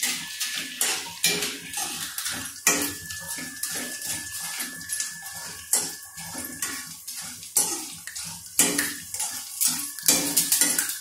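Corn frying in oil in an iron kadai, with a steady sizzle. A metal wire strainer scrapes and clinks against the pan in quick, irregular strokes as the corn is stirred.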